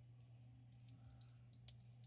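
Near silence: a low steady hum, with a few faint clicks of small plastic minifigure parts being handled and pressed together, in the second half.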